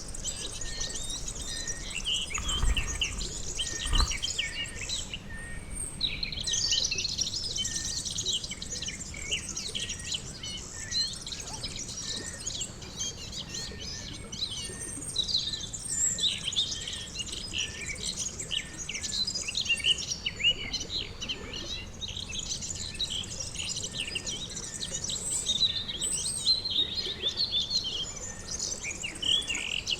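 Pond ambience dominated by many birds chirping and singing in dense overlapping short notes, with a faint short note repeating at a steady pace beneath them. Two low thumps come a few seconds in.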